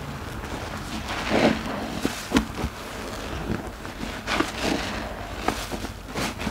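A soap-soaked sponge squeezed and kneaded by gloved hands in a basin of suds: irregular wet squelches and sloshes as foam and water are pressed out.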